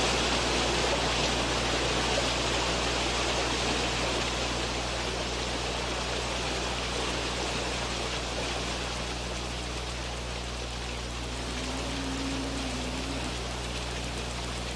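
A large herd of Nelore cattle wading through shallow floodwater: a steady rushing splash of many hooves and bodies in the water, like the roar of a waterfall, loud and long-drawn.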